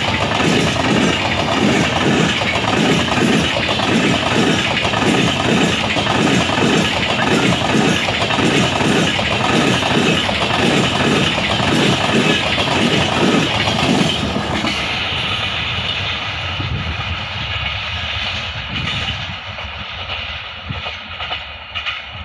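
Passenger train coaches running through at about 60 km/h, wheels clattering over the rail joints in a steady rhythm under a loud rumble. About two-thirds of the way through the sound drops suddenly, then fades as the train moves away.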